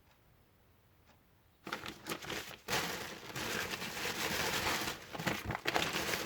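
Near silence, then, from under two seconds in, plastic packaging crinkling and rustling as new car parts are handled.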